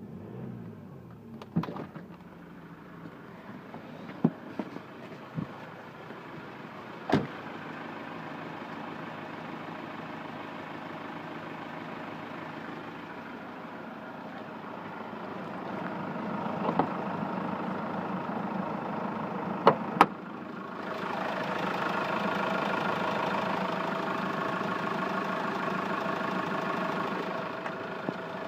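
Hyundai Grand Starex engine running with an extraneous noise that the owner is trying to pin down. Its sound grows louder in two steps, about halfway through and again about three-quarters through. A few sharp clicks come in the first third, and a close pair of clicks comes about two-thirds in.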